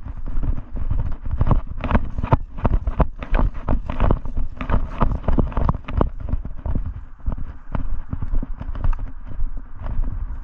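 A quick, uneven series of knocks and thuds, like footsteps at a jog, over a steady low rumble.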